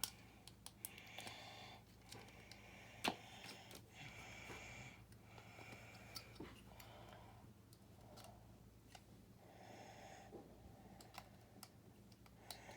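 Plastic building bricks clicking and clacking, faintly, as small pieces are handled and pressed together, with irregular sharp ticks; the loudest comes about three seconds in.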